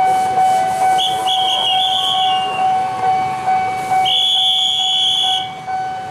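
Railway level-crossing warning bell ringing steadily in a rapid ding, about two strokes a second, as an electric commuter train stands at the crossing. Two long, high whistle blasts sound over it, about a second in and again about four seconds in.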